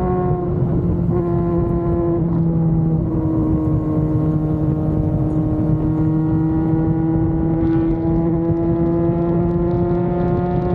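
Yamaha FZ6 Fazer 600 motorcycle's inline-four engine running at a steady cruising pitch, shifting only slightly up and down, over an even rushing noise.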